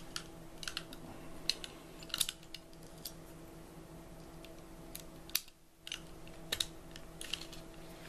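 Light, irregular metal clicks from a handcuff and a homemade shim, a ground-down junior hacksaw blade, being worked down between the cuff's arm and its ratchet to release the single-locked cuff. A faint steady hum sits underneath.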